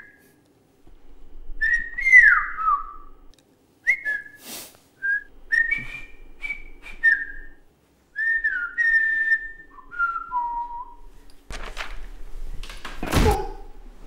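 A man whistling a phrase of short notes and slides, rising and falling like speech: a mock 'whistled language' insult, taken by its hearer as being about his mother. Near the end a noisy rustle with a loud thump.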